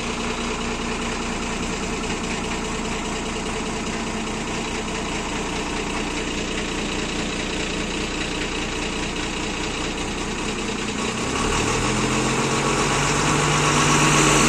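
Ten-wheel truck's diesel engine idling steadily just after starting, then revved higher about eleven seconds in, getting louder toward the end.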